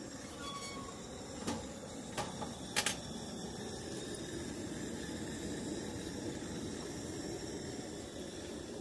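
A few sharp metallic clicks, about one and a half to three seconds in, as the Coleman camp oven's sheet-metal door is shut and latched, over a steady hiss from the propane stove burner heating the oven from below.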